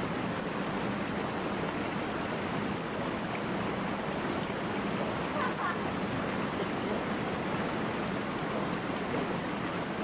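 Shallow, rocky river rushing over boulders close by: a steady, even rush of water.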